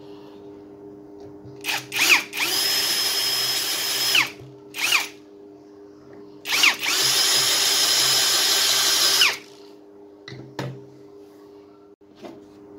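Cordless drill boring holes through a knife's wooden handle scales: two runs of a few seconds each, with short trigger blips before and between them, the motor whine dropping as it spins down at the end of each run.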